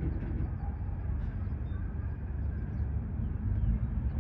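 Steady low rumble of outdoor background noise, with a few faint, short high chirps over it.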